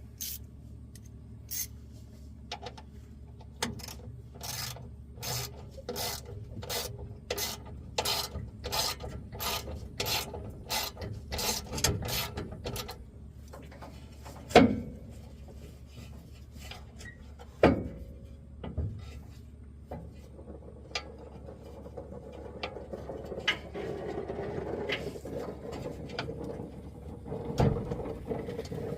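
Hand ratchet being worked in steady strokes, a sharp click a little under twice a second for about twelve seconds. Then two loud knocks a few seconds apart, and a rising rubbing, scraping noise near the end.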